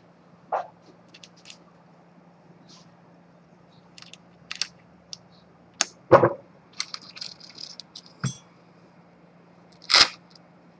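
Small metal clicks and taps as tweezers and fingers work an antique pocket watch case open, with a louder knock about six seconds in and another near the end, over a faint steady hum.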